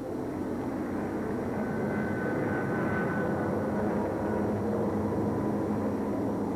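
Diesel-electric locomotives passing close by: a steady, even rumble of engines and wheels on the rails.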